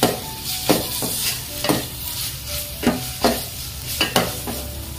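A metal spatula stirring and scraping a metal pot, with irregular scrapes about every half second, while onion paste and ginger-garlic paste sizzle as they fry in oil.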